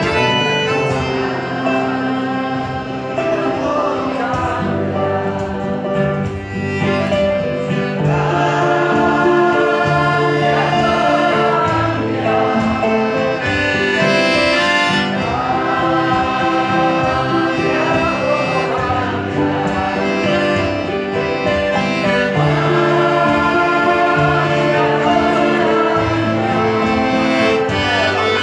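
Quartet of accordion, electric harp, guitar and soprano saxophone playing together, with a wavering, vibrato-laden melody over held bass notes.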